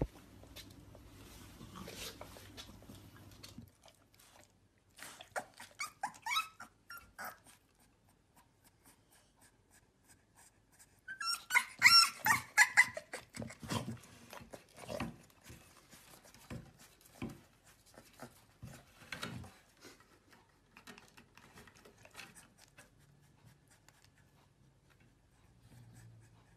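Chow chow puppy making high-pitched yips, loudest about halfway through, with short gliding whines a few seconds earlier and scattered soft knocks of play.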